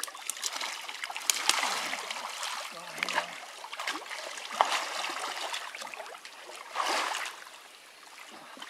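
Creek water splashing and sloshing as a snapping turtle is hauled by hand out of an underwater hole in the bank. It comes in uneven bursts with scattered small knocks, loudest about a second and a half in and again near seven seconds.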